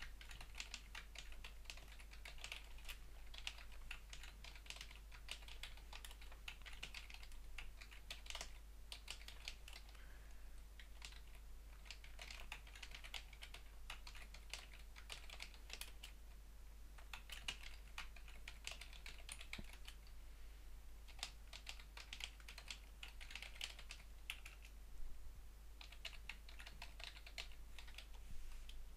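Typing on a computer keyboard: quick runs of faint keystroke clicks broken by short pauses.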